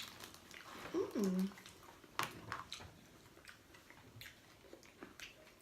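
Close-up chewing and mouth clicks of someone eating, with a short hummed 'mm' about a second in.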